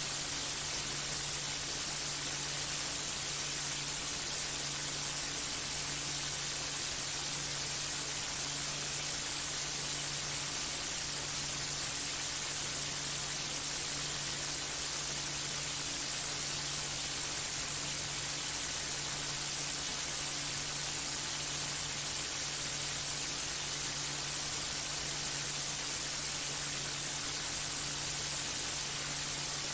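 Steady, unchanging hiss like static, with a low electrical hum underneath.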